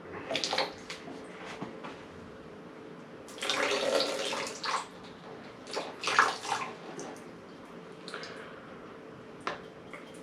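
Engine oil pouring and splashing out of a Subaru EJ20 engine as it is turned over on the engine stand, in several gushes, the longest lasting about a second and a half, with a few sharp metal clicks.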